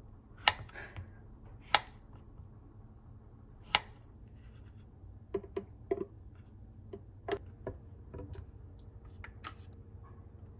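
Kitchen knife striking a wooden cutting board three times, sharply and a second or two apart, as avocado is cut into chunks. Lighter clicks and knocks of kitchen handling follow in the second half.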